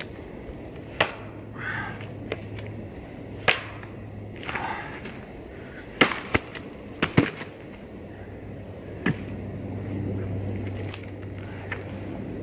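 A large Bark River Bravo Crusader chopping knife chopping into a thin tree trunk of fairly soft wood. The blows are sharp and irregular, a second or more apart, with a few in quick pairs about halfway through.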